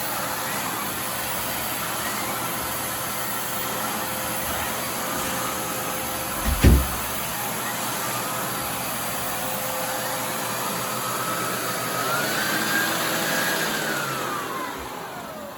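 Hoover Air Steerable upright vacuum cleaner running at max speed, with its suction-driven turbo brush spinning; the owner says the motor sounds bad. Its whine rises a little about twelve seconds in, then falls as the machine winds down near the end, and a single thump comes about halfway through.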